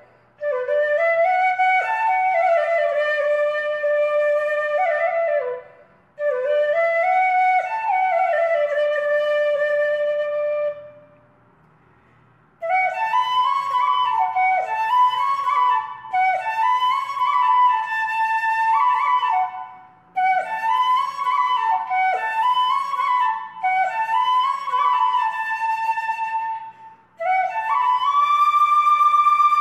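Background music: a solo melody on a flute-type wind instrument, played in phrases with short pauses between them.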